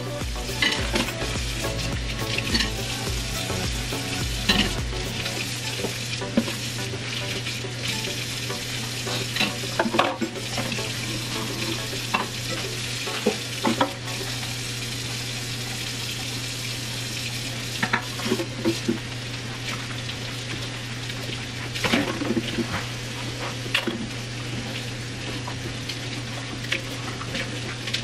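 Kitchen faucet running steadily into a stainless steel sink while dishes and cups are rinsed and scrubbed by hand, with scattered clinks and knocks of dishware every few seconds.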